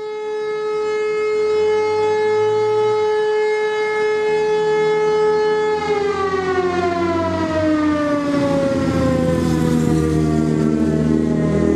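Fire-brigade alarm siren sounding a loud, steady tone that slides down in pitch from about halfway through. This is the siren call-out that summons volunteer firefighters.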